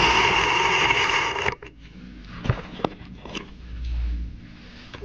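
A hand-held power tool runs in one burst of about a second and a half, stopping suddenly, as a mower blade bolt is run down tight. A few light metal knocks follow.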